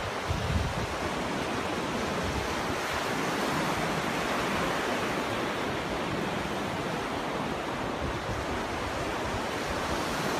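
Ocean surf washing onto a beach: a steady rush of wave noise.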